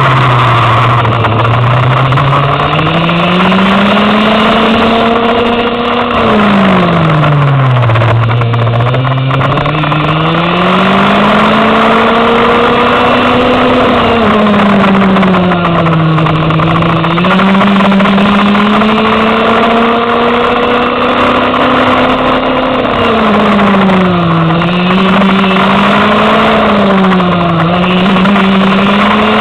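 Go-kart engine heard onboard while lapping at speed. Its pitch climbs on the straights and drops sharply as it slows for the corners, about five times, each time winding back up.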